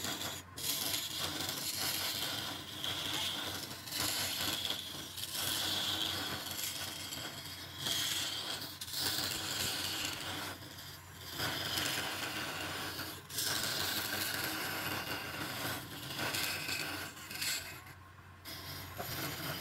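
Hand-held flat steel scraper cutting a spinning wooden blank on a wood lathe: a hissing scrape that surges every second or two as the tool is pressed in and shavings fly, over the steady hum of the lathe motor.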